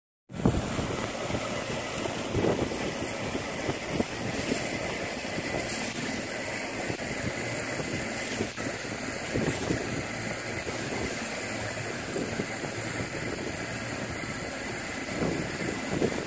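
Steady wind buffeting the microphone over choppy lake water sloshing around a small boat under way. It begins abruptly just after the start and runs on evenly with no single sound standing out.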